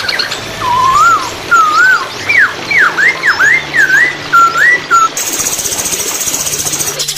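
Poksay hongkong, a laughingthrush, singing a string of loud, slurred whistled notes, each sliding up or down, over a steady rush of flowing water. Near the end the whistles give way to a fast, high, buzzing trill.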